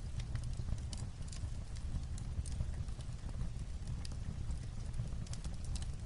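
Fireplace crackling with light rain on a roof: irregular sharp crackles and pops over a steady low rumble.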